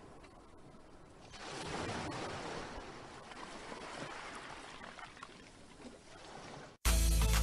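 A steady rushing noise swells up about a second in and carries on, then cuts off near the end as loud music with a heavy bass beat starts abruptly.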